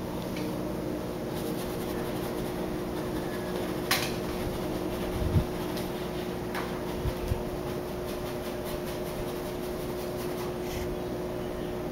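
Steady hum of a household appliance running, with a constant low tone. A few light taps and clicks come about four to seven seconds in.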